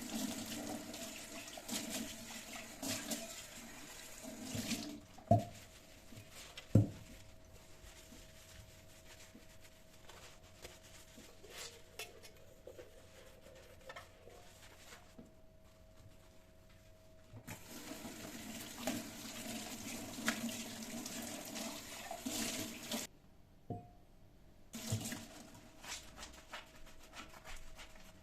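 Water running from a tap into a sink in two spells, with a few sharp knocks of objects in between.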